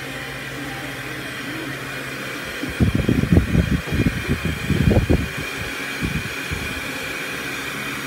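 Electric hand mixer running steadily with a motor whine, its beaters whipping a cream and condensed-milk mixture in a ceramic bowl. For a couple of seconds in the middle, loud irregular low thumps come over it.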